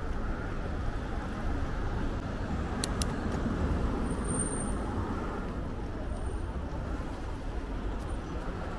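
Steady city road-traffic noise, a continuous low hum of passing cars and other vehicles.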